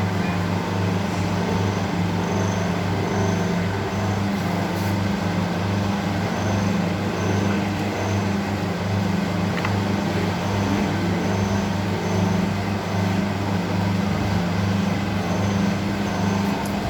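A machine running steadily with a deep electric-motor-like hum that pulses in a regular rhythm, with a faint high whine that comes and goes in step.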